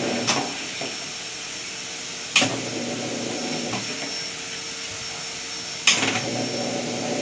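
Worn original drain pump of a Consul Facilite 10 kg washing machine running with a steady, loud hum, which the owner attributes to its age and wear. Two sharp knocks cut through it, about two and a half seconds in and again near six seconds.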